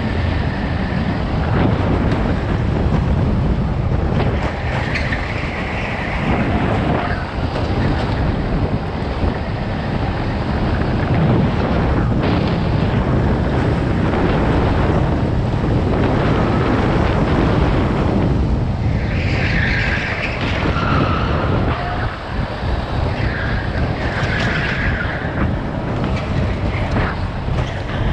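Go-kart heard from on board as it laps: the engine runs under throttle with a dense rumble of wind and vibration on the camera microphone, rising and dipping through the lap.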